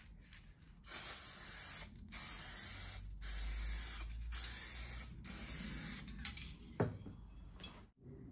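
Aerosol can of hydro-dip activator spraying over carbon-fibre water-transfer film floating in a tank, in five hissing bursts of about a second each. This is the activation step that softens the film's ink before the part is dipped. A short knock follows near the end.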